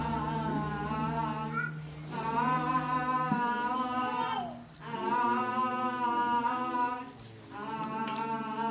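A girl's voice humming a slow wordless tune in long held phrases of about two seconds each, with short breaks between them.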